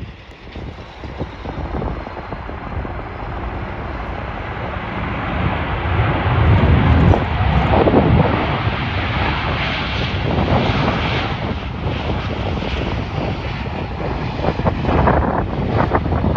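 Jet airliner's engines running as it passes, a noise that builds to its loudest about seven seconds in and stays strong, with wind buffeting the microphone.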